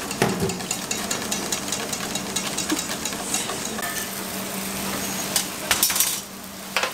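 Wire whisk beating rapidly against a stainless steel bowl, a quick run of clicking scrapes. After a cut, a steady hum, and a metal sheet pan clattering as it slides out of an oven, with a last knock near the end.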